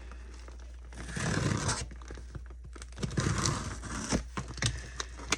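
Shipping packaging being torn and crinkled by hand while parcels are opened, in two main rustling stretches about a second in and about three seconds in, with a few sharp clicks.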